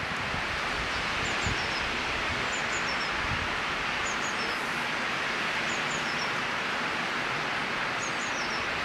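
Steady outdoor woodland background hiss, with faint, high bird chirps in little groups of two or three every second or two.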